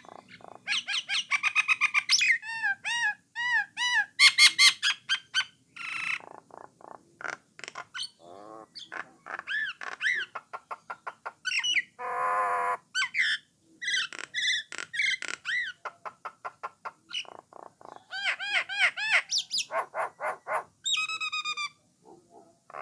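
A Jalak Nias (brown myna) singing a long, varied song. Rapid runs of clicking notes mix with repeated arched whistles and harsh, buzzy phrases, broken by a few short pauses.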